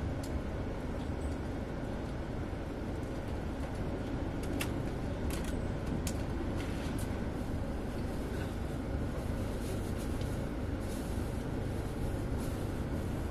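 Passenger coach rumbling steadily as the train rolls slowly through a station, heard from inside the carriage, with a few light clicks about five seconds in.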